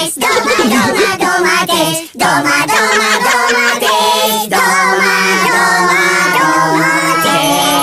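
A children's song: a voice singing a repeated phrase of held, sustained notes over a music backing.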